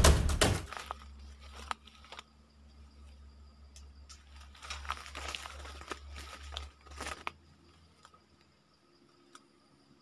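Scattered crackles, clicks and a few soft knocks from movement and handling, over a steady low hum. The hum and noises stop about seven seconds in, leaving only a few faint ticks.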